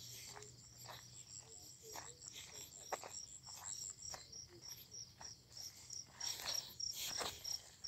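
Insects chirping with a steady, high-pitched pulse, about three or four chirps a second, over footsteps and rustling through dry grass and rice stubble that grow louder near the end.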